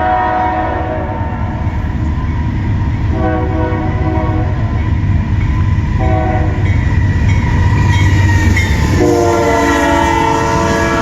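A CN freight train's diesel locomotive horn sounds the grade-crossing signal as the train approaches: the end of a long blast, another long blast, a short one, then a final long blast still sounding at the end. A steady heavy rumble from the train runs underneath.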